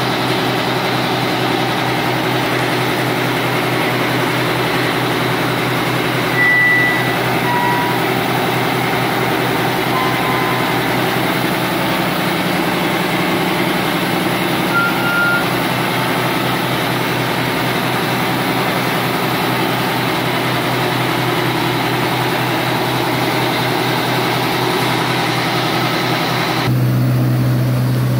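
A steady mechanical hum, like a motor or engine running, with a few brief high tones in the first half; the hum changes abruptly near the end.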